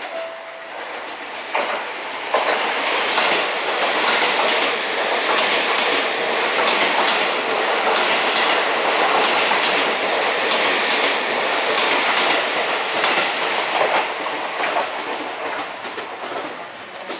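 Seibu 001 Series Laview limited express passing through a station at speed, its wheels clacking over the rail joints. The noise builds about two seconds in, stays loud and dense with rapid clicks, then fades near the end.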